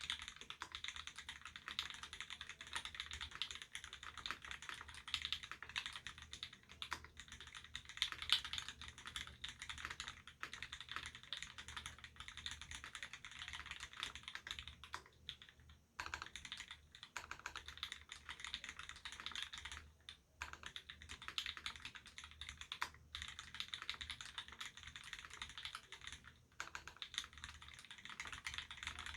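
Continuous fast typing on a mechanical keyboard with lubed Gateron Ink Black linear switches, a stainless steel plate and GMK doubleshot ABS keycaps: a dense run of keystroke clacks with a few brief pauses.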